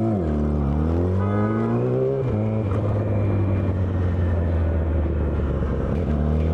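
A motor vehicle engine running: its pitch dips and then climbs for about two seconds, drops, and then holds steady.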